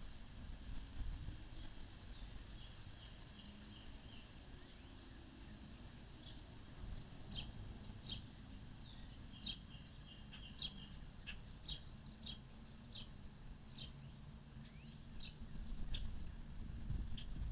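A faint, steady low rumbling drone from far off, like a great many race cars on a distant oval: an unexplained sound that seems to come from the sky. Birds chirp over it in a long string of short, high notes.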